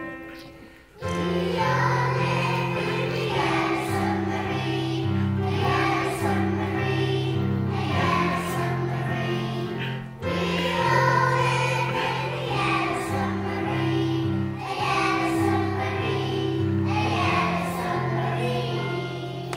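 A group of young children singing together over a keyboard-style accompaniment with sustained bass notes, starting about a second in after a short pause.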